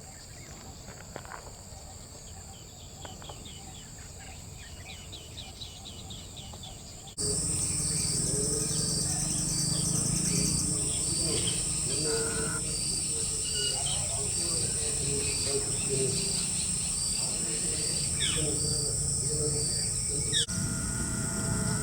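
Outdoor bird calls over a steady, high insect buzz, in clips joined by abrupt cuts. About seven seconds in, the sound jumps louder, and a cricket-like chirp repeats about once a second under scattered bird notes.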